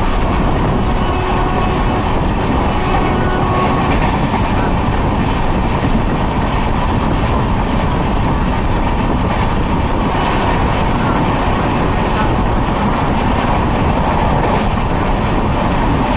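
Samatha Express passenger train heard from aboard a coach, running at speed through a station without stopping: a steady, loud rush of train running noise that does not let up.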